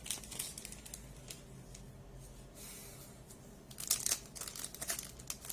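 Foil trading-card pack wrapper crinkling and tearing, with cards being slid and handled, in brief rustles; the loudest comes about four seconds in.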